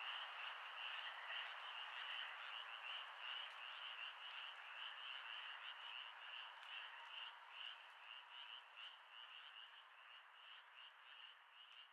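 A chorus of frogs calling: rapid, evenly repeated pulsing calls over a dense, even background of many more frogs, slowly fading out.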